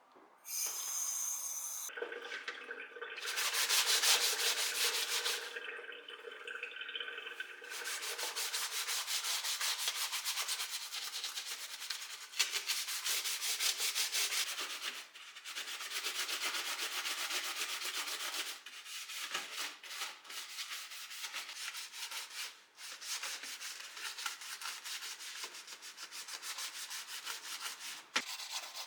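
Rapid back-and-forth scrubbing of a surface during cleaning, in fast strokes with a few brief pauses.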